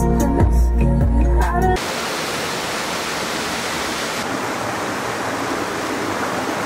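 Music with a heavy low beat cuts off suddenly about two seconds in, giving way to the steady rush of a small waterfall and rocky stream.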